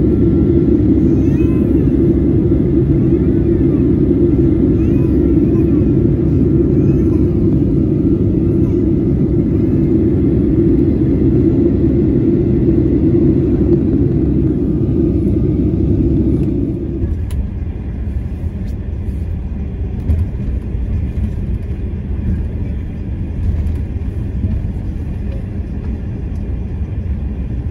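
Steady cabin noise of a Boeing 737 airliner in flight, jet engines and rushing air heard from a window seat. About seventeen seconds in it cuts to the quieter, rougher rumble of a vehicle's tyres and engine at highway speed.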